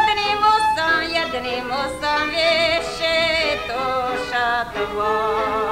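A woman singing a Slovak folk song in a high voice with wavering pitch, from an old recording made around 1958.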